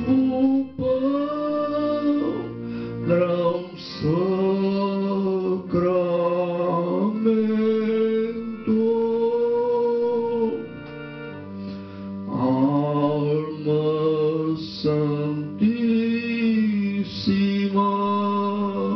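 A slow devotional hymn sung in long held notes over electronic keyboard chords.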